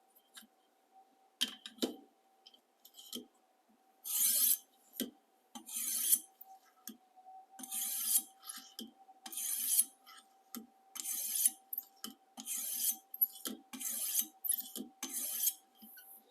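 Oiled 400-grit stone of a guided knife sharpener stroked along a chef knife's edge as cleanup strokes. After a few light scrapes, it settles about four seconds in into a steady run of about nine strokes, roughly one every second and a half.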